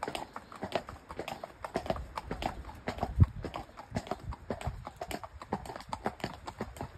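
Hoofbeats of two horses walking and trotting on a paved path: a quick, uneven run of hard clip-clops, with one louder knock a little past three seconds in.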